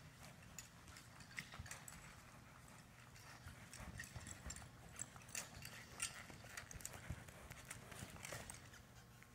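Faint, irregular hoofbeats of a ridden horse moving over the soft dirt footing of an indoor arena.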